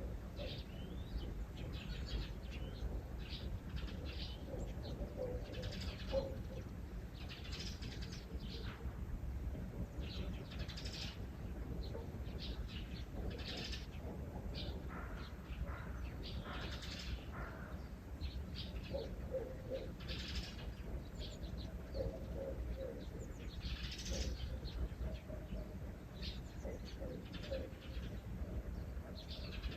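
Small birds chirping and calling, many short high notes overlapping, with short groups of lower repeated notes among them and a steady low rumble of background ambience.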